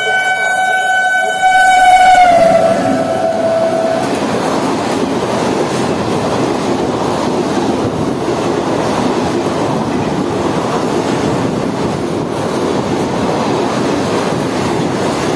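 A WAP7 electric locomotive sounding its horn as it passes at speed. The horn drops in pitch about two seconds in as the locomotive goes by, then stops. It is followed by the steady rumble and clatter of ICF coaches rushing past, easing slightly near the end.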